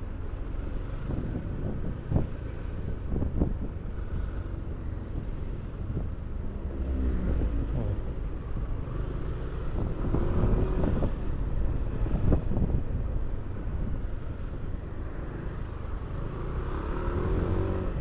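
Yamaha NMAX 155 scooter with a modified exhaust riding slowly in traffic, its engine note rising and falling a few times over a low wind rumble. A couple of sharp knocks stand out, near the start and about two-thirds through.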